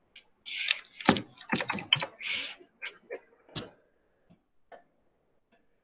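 Computer keyboard typing and clicking in a quick irregular run of sharp taps for about three seconds, followed by a few faint scattered clicks.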